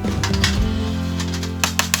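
Background music with steady held low notes, with a few sharp clicks or taps at the start and again near the end.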